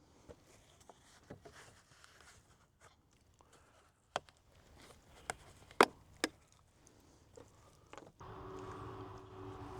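Sharp plastic clicks and knocks from handling a 5-quart motor oil jug, then, about eight seconds in, oil starting to pour steadily down a long funnel into the engine's oil fill.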